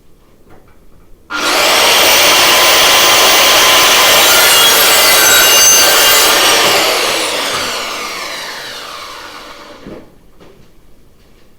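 Electric power saw starting up suddenly and cutting wood for about five seconds, then spinning down with a falling whine once the trigger is released.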